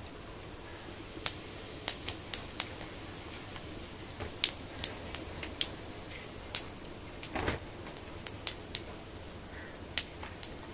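Whole tempering seeds (kalo jire and phoron) sputtering in hot oil in a kadai: scattered sharp pops and crackles over a low steady hiss, with one longer, fuller burst about seven seconds in.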